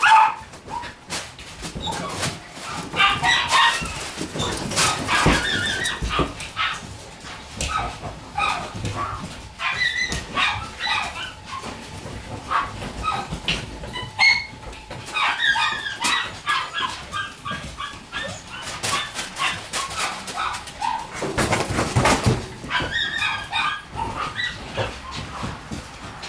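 Shiba Inu puppy whimpering and yipping in repeated clusters of short, high-pitched calls, with a few knocks and rustles in between.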